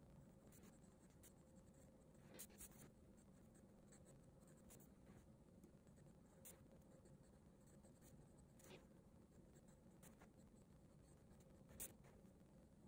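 HB graphite pencil drawing straight lines on paper: faint, steady scratching, broken by a few short, sharper ticks.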